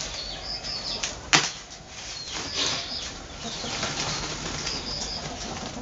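Woven plastic sack of maize kernels rustling and crinkling as it is hand-stitched shut, the thread drawn through its mouth. A single sharp click about a second and a half in.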